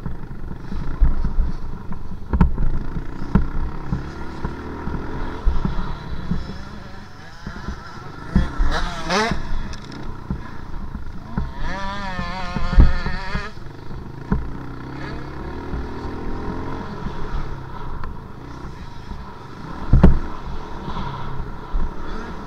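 Dirt bike engine being ridden on a motocross track, revving up and down with the pitch rising sharply about nine seconds in and wavering a few seconds later. Heavy thumps and wind rumble on the on-board microphone, with a loud jolt near the end.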